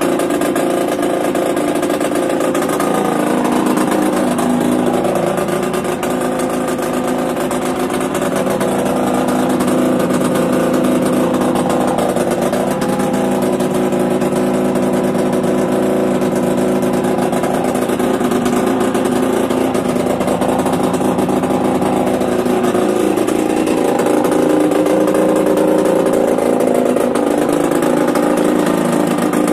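Yamaha DT125R's single-cylinder two-stroke engine running through a Big One aftermarket exhaust, mostly idling with a few small rises in revs as the throttle is opened a little.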